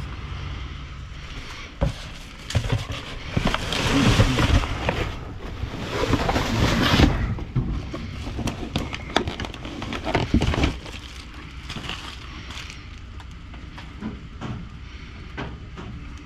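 Gloved hands rummaging through plastic-wrapped food packages and cardboard boxes in a dumpster: crinkling plastic and scraping cardboard come in dense bursts, then settle to occasional rustles and clicks, over a steady low hum.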